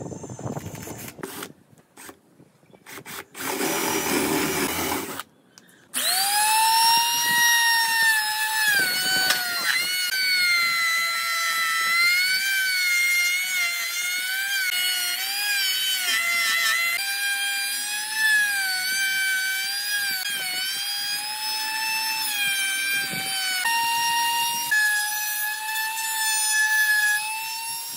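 A compact trim router cuts into a pine board. After a few knocks and a brief rushing noise, its high motor whine starts about six seconds in. The pitch sags and wavers as the bit takes load in the wood.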